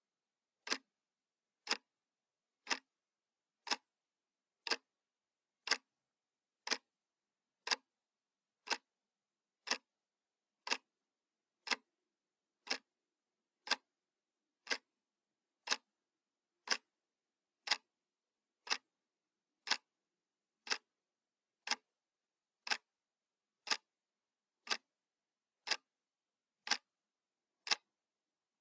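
Clock ticking sound effect: single sharp ticks, one each second, evenly spaced.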